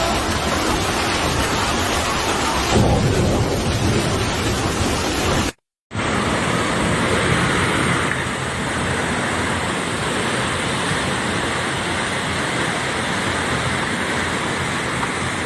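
Loud, steady rushing noise of heavy water, rain or floodwater, with a deeper surge about three seconds in. The sound cuts out for a fraction of a second about five and a half seconds in, then the rushing resumes more evenly.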